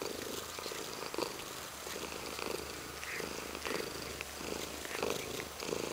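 Domestic cat purring close to the microphone, a steady pulsing rumble.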